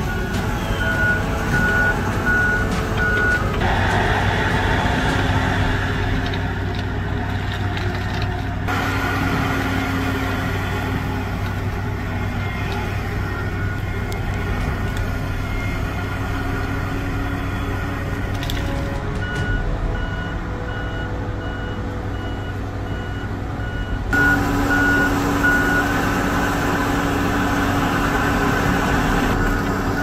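Tigercat 870D shovel logger's engine running steadily under work, with a warning alarm sounding in runs of short repeated beeps, near the start and again over the last third.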